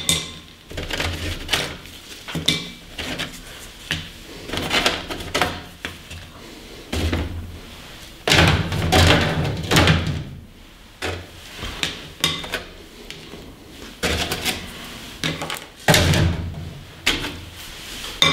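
Paper-dry apple chips clicking and rattling as they are picked off plastic mesh dehydrator trays and dropped onto a plate, with the plastic trays knocking and clattering as they are lifted off the stack. The clicks come irregularly, with a couple of louder clattering spells.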